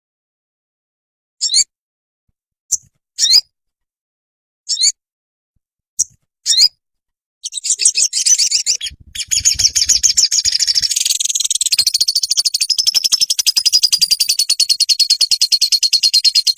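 Songbird calling: several short separate high chirps, some sweeping upward, then about halfway in a rapid continuous high trill starts and keeps going.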